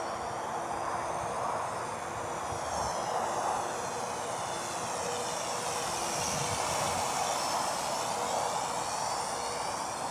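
DM009 quadcopter's propellers and motors buzzing steadily as it flies low and close, the whine sweeping down and back up in pitch as it moves.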